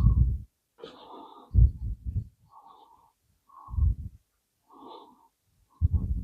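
A polishing cloth rubbing compound back and forth on the typewriter's painted metal panel, about one stroke a second. Every other stroke gives a duller, louder bump.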